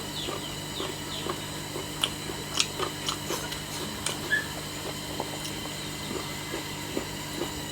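Close-miked chewing and wet lip smacks of a person eating a meal of rice, dal and chicken: irregular small clicks, with a few sharper smacks in the first half, over a faint steady low hum.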